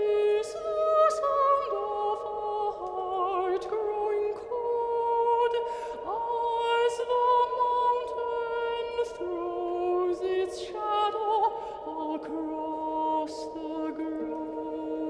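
Operatic singing: a voice with vibrato over several held notes at once.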